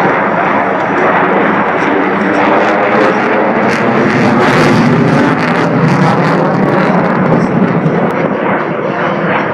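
Loud, steady engine noise of an aircraft flying overhead, swelling a little around the middle.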